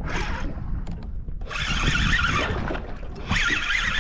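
Fishing reel running in two rasping bursts, about one and a half seconds in and again near the end, as line is worked with a fish taking the bait. Under it, a steady low rumble of wind and the boat at sea.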